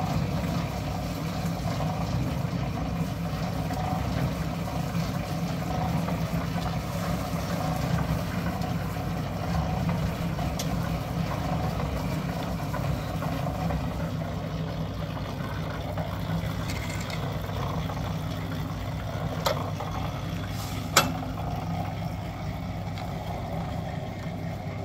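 Portable drum concrete mixer running with a steady low hum. Two sharp knocks come late on, the second louder.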